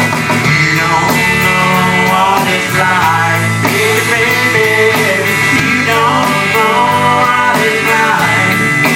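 Live country band playing an instrumental break: an electric guitar plays a bending lead line over bass and drums, loud and continuous.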